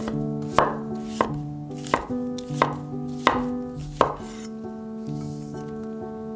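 Cleaver slicing fresh mushrooms on a wooden cutting board: six sharp knocks of the blade striking the board, about one every two-thirds of a second, stopping about four seconds in. Soft instrumental background music plays under it.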